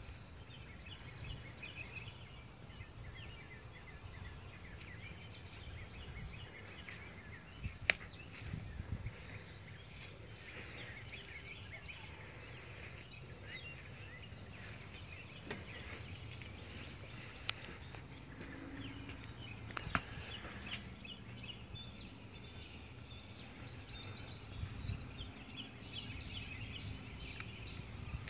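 Backyard ambience: small birds chirping on and off, with a dense high buzz for about three and a half seconds midway and a few faint knocks.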